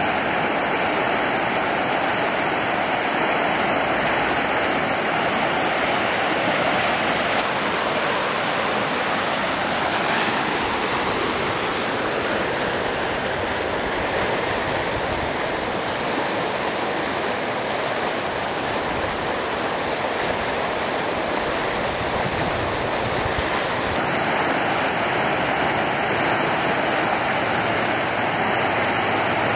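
Steady rush of creek water pouring over a small ledge rapid and churning into white water, with the creek running higher than normal.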